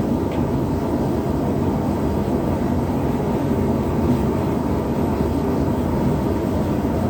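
Small gas forge running turned up high, a steady low rushing noise from its burner, with the knife blade heating inside it for a slow-cooled heat treatment.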